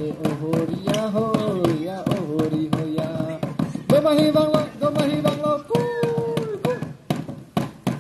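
Domahi dance song: singing voices over a fast, steady drumbeat, with a long held note about three-quarters of the way through.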